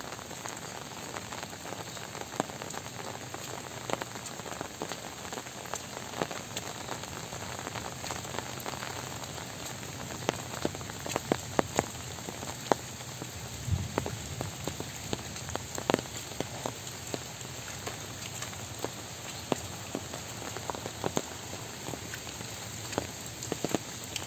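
Steady rain falling on leaves and a wet dirt path, an even hiss with many sharp drop ticks that come thickest in the middle. There is a single low thump just past halfway.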